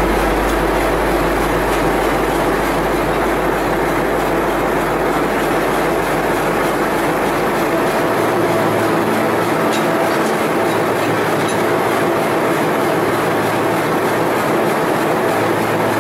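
M4-class diesel-electric locomotive idling at close range: a steady mechanical drone whose lowest hum shifts about halfway through.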